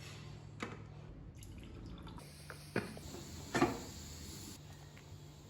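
Water dripping: three separate drops, the last the loudest, over a low steady hum.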